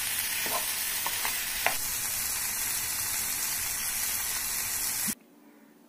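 Broccoli curry sizzling in oil in a frying pan as it is stirred with a spatula, with a few light clicks of the spatula against the pan. The sizzling cuts off suddenly about five seconds in.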